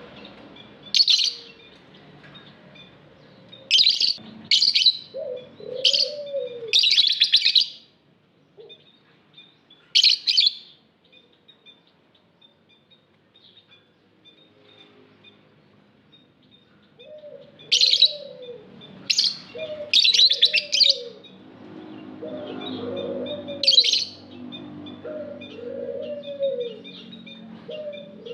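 Lovebirds calling: loud, shrill, harsh calls in clusters, with a quieter lull in the middle, over steady soft high chirping. Lower, arched cooing calls come in underneath at times, mostly in the second half.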